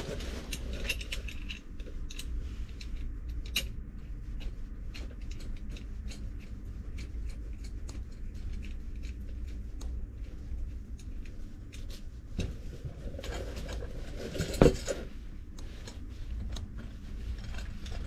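Handling noise of copper espresso-machine tubing and its plastic hose being turned over in the hands: scattered light clicks and rustles, with one sharper knock about fifteen seconds in. A steady low hum runs underneath.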